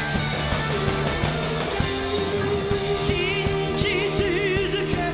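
Live rock band playing: electric guitar, bass and drums with a steady beat, and a long held note with vibrato in the second half, which is likely sung.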